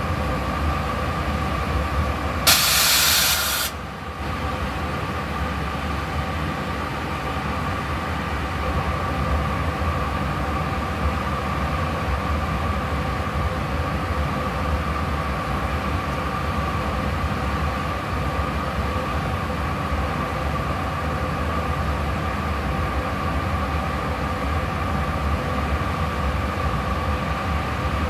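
JR Freight EH500 electric locomotive standing idle, its equipment humming steadily with a whine and a low rumble. About two and a half seconds in, a loud hiss of released air lasts about a second and cuts off sharply.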